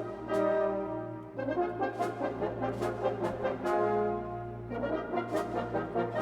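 Background music with brass instruments and a steady beat.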